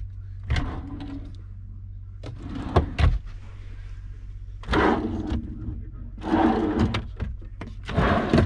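Wooden cabinet drawers being pulled open and pushed shut: a few sharp knocks, then three longer sliding runs of the drawer slides, over a steady low hum.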